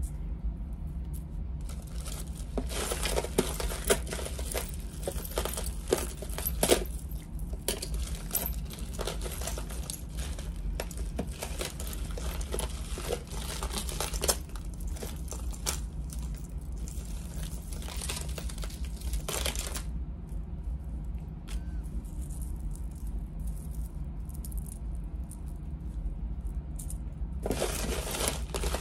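Costume jewelry clinking and rattling with rustling handling noise as it is rummaged through and sorted by hand, over a steady low hum. The clatter eases for several seconds past the middle and picks up again near the end.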